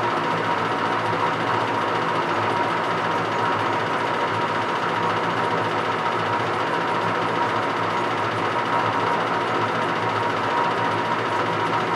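A small motor running steadily at an even speed, with a constant whine over a dense mechanical hum.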